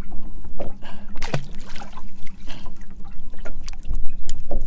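Wind rumbling on the microphone and water lapping at a boat's hull, with scattered clicks and knocks of handling in the boat.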